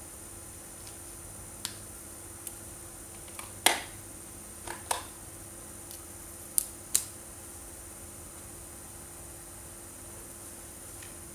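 Short, sharp plastic clicks and taps from handling felt-tip markers and pulling a marker's cap off, scattered through the first seven seconds. The loudest click comes near four seconds and a close pair near seven, over a faint steady hiss.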